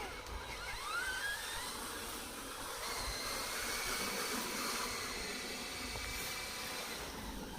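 Small electric drive motors of a radio-controlled bulldozer whining over a steady hiss. The whine rises in pitch about a second in, and a thin steady high whine holds from about three seconds on.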